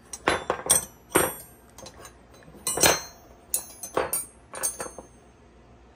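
Steel double-ended wrenches clinking against one another as they are handled: a string of sharp metallic clinks, each with a short ringing tail.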